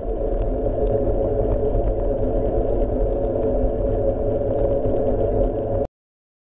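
Motorcycle engine running steadily at riding speed, with road and wind rumble, heard from a camera mounted on the bike's rear and sounding muffled. It cuts off suddenly near the end.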